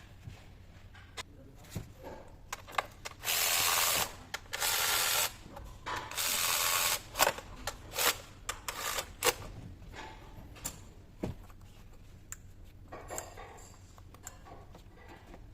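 Tool and parts handling on an engine bay: three noisy stretches of about a second each, then scattered clicks and knocks of metal and plastic parts.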